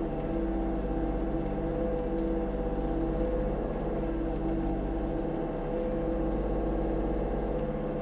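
Kubota U35-4 mini excavator's diesel engine running steadily, with a constant hum, as the hydraulic boom swings the bucket through the debris.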